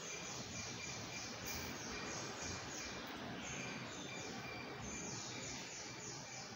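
Faint steady background noise with a high, faint chirping that repeats about three times a second.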